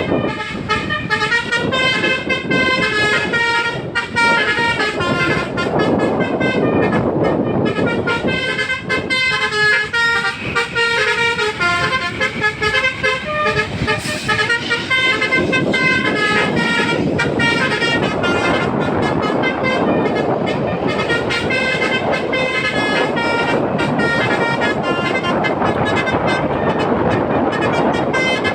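Telolet musical horn of an NPM bus playing a continuous run of changing tooting notes like a tune, without a break, over steady vehicle noise.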